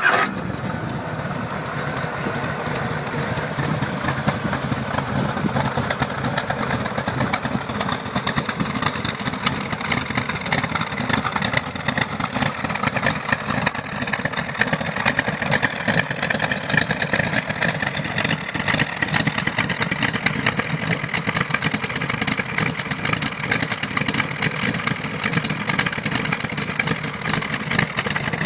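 1969 Corvette's 383 cubic-inch V8 firing up and then running steadily at idle, a dense, rapidly pulsing exhaust note.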